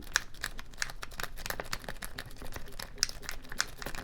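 A lock pick raking in a Master Lock four-pin padlock still sealed in its plastic blister package: quick, irregular small clicks and scrapes as the worm rake works the pins, mixed with the package's plastic crinkling.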